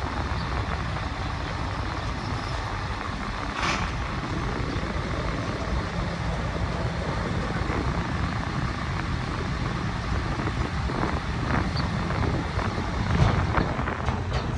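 A ferry's engine running steadily, a low, even rumble with a rush of noise over it.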